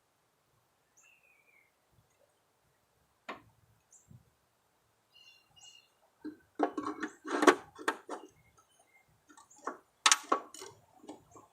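Sharp clicks and clatters of metal parts and tools being handled while new spindles go onto a mower deck, starting in earnest about six seconds in, with a few faint bird chirps before.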